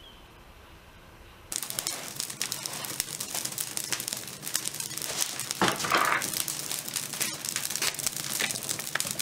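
Wood fire crackling in the firebox of a wood-fired tile kiln. It starts abruptly about a second and a half in as a dense crackle of many small snaps, with a louder surge a little past the middle.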